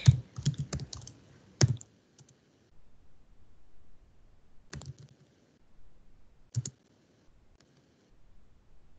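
Computer keyboard keys clicking as a command is typed: a quick run of keystrokes in the first two seconds, then a few single, spaced-out clicks.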